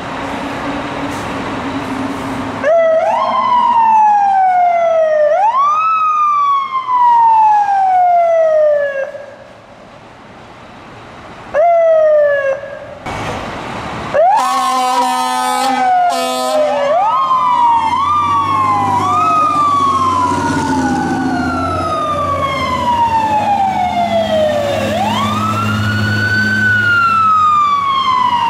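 Fire-truck electronic sirens wailing, each wail rising quickly then falling slowly over a few seconds, as the trucks pull out. A short horn blast sounds about halfway through, and after it two sirens overlap over the low rumble of a diesel truck engine passing.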